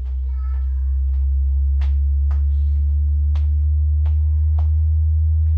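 Home theater subwoofers playing a sine-wave test tone that climbs in pitch, from about 64 Hz to about 76 Hz. It gets louder over the first second, then holds steady. It demonstrates the room's bass frequency response.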